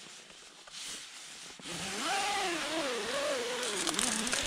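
Tent door zip being pulled shut on a Lanshan 1 tent, a rasping zip whose buzzing pitch wavers up and down with the speed of the pull, starting about two seconds in after some faint rustling.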